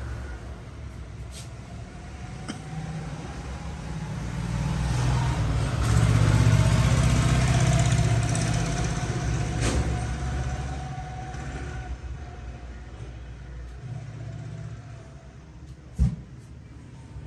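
A large road vehicle passing: its engine and road noise swell to a peak in the middle and fade away. A single sharp smack comes near the end.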